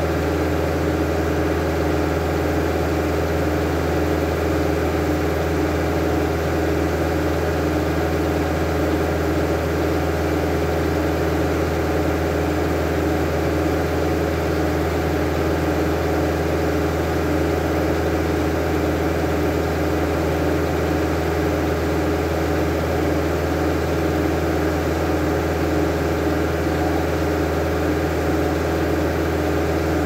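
Engine running an antique Belsaw circle sawmill at a steady, even speed, with no change in pitch or load.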